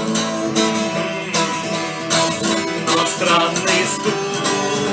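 Acoustic guitar strumming chords in a steady rhythm, the instrumental ending of a sung song.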